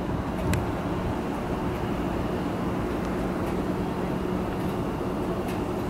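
Steady low mechanical hum with a held drone and one overtone above it, plus a couple of faint clicks about half a second in.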